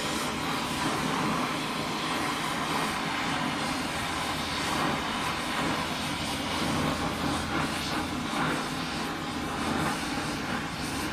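Steady machine noise with a low hum underneath, running evenly with no breaks.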